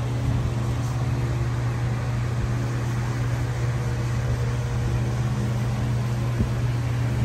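Steady low machine hum, unchanging, like a fan or air-conditioning unit running.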